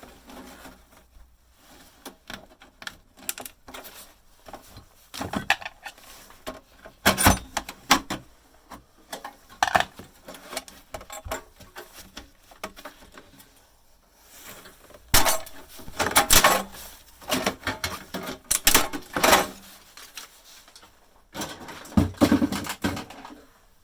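Irregular knocks and clattering of a bread maker's plastic and metal parts being handled and pulled apart, busiest in the second half with several sharp knocks.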